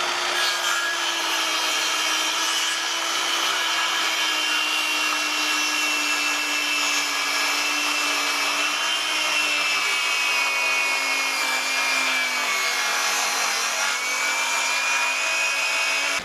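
Electric power saw running steadily through a wooden rafter, cutting a bird's mouth notch. Its pitch sags under load about three-quarters of the way through, picks back up, and the saw stops at the end.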